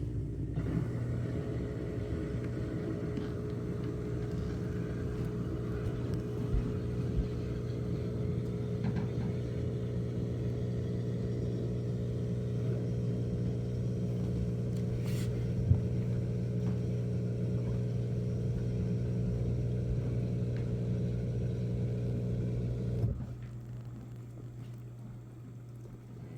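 Whirlpool dishwasher's pump motor humming steadily, then shutting off abruptly about 23 seconds in.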